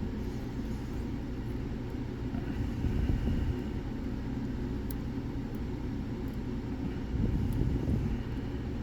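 Steady low rumble of background noise, with a few faint sharp ticks from a pick working the pins of a lock.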